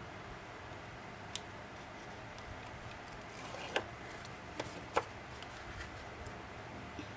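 Paper and cardboard journal pieces being handled and pressed down on a craft mat: a handful of short, sharp clicks and taps scattered over steady low background noise, the loudest about five seconds in.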